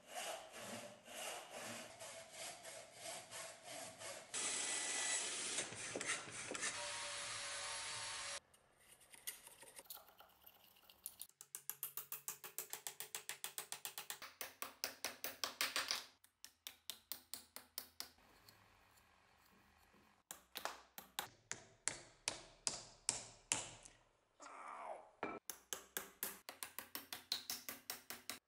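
Hand saw cutting wood in runs of quick back-and-forth strokes, about three to four a second, broken off and taken up again several times. A few seconds of steady, louder rushing noise comes early on.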